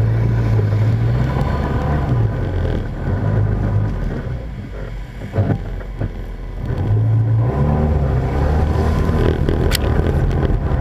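Side-by-side UTV engine running as it drives slowly along a dirt trail, easing off around the middle and picking up again about two-thirds of the way in.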